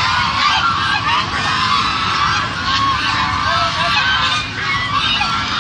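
A large flock of white domestic geese honking, many calls overlapping into a continuous chorus.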